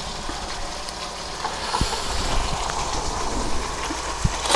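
Marinara sauce sizzling and bubbling in a hot pan on the stove: a steady hiss with a couple of soft pops.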